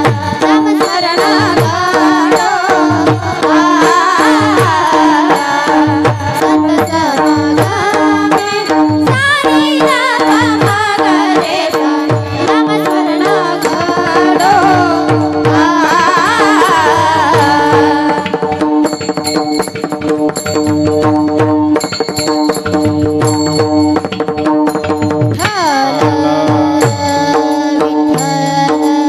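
Kirtan accompaniment playing without words: a wavering melody over steady held drone notes, with a tabla rhythm. About 18 seconds in the melody drops away, leaving the drone and the drum rhythm with high ringing strikes.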